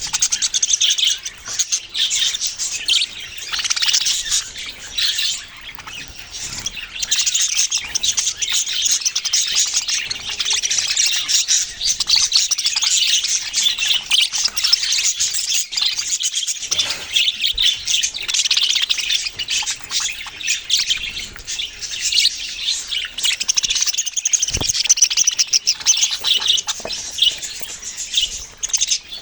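A flock of small pet parrots, budgerigars and lovebirds, chirping and chattering continuously, with many overlapping high calls and the odd squawk.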